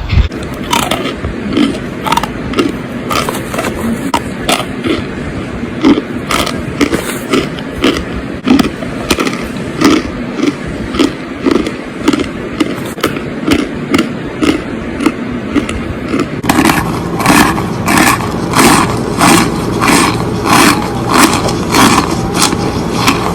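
Close-miked crunching in a steady rhythm of about two crunches a second, turning sharper and crisper about two-thirds of the way through.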